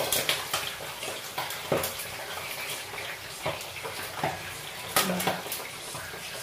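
Pork rind pieces deep-frying in very hot oil in a stainless steel wok, a steady sizzle broken by sharp pops about once a second as the skin bursts and spatters.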